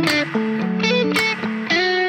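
Background music led by guitar, with held notes and a steady beat.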